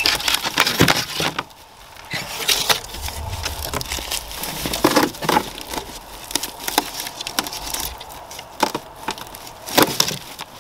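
Plywood cracking and splintering in irregular sharp snaps as a pilum stuck fast in it is wrenched and worked loose.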